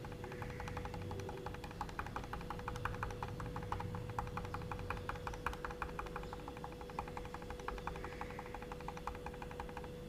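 Digital pen scratching quickly across a drawing surface in many small, even strokes, about eight a second, while diagram lines are drawn. A faint steady hum runs underneath.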